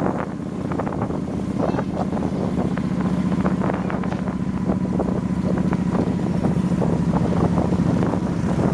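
Wind buffeting the microphone on a moving motorbike, over the engine's steady low drone.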